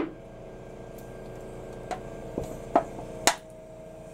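Rectangular steel paint thinner can collapsing under vacuum from a surgical suction machine: the steel walls buckle inward with a series of sharp metallic pops and crinkles, about five in all, one at the very start and the rest between two and three and a half seconds in. The suction machine hums steadily underneath.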